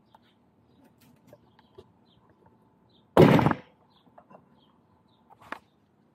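Scooter tire being worked off its split rim and hub motor: one loud, short clunk of rubber and metal about three seconds in, lasting about half a second, amid light knocks and clicks of hands and parts.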